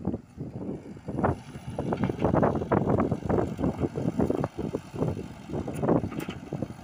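Komatsu PC78UU mini excavator running while it works loose soil, its sound swelling and dipping unevenly.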